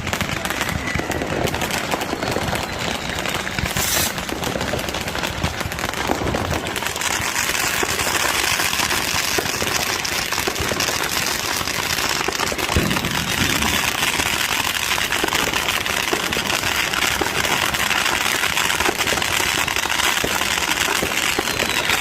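Fireworks and firecrackers going off in a dense, continuous crackle of rapid bangs, growing brighter and sharper from about seven seconds in.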